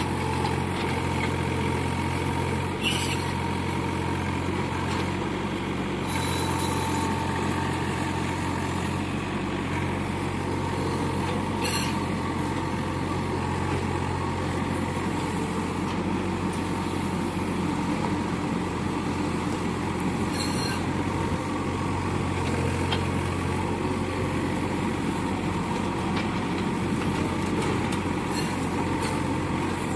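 Yanmar diesel engine of a 2.5-tonne mini excavator running steadily, with a few brief knocks about 3, 12 and 21 seconds in.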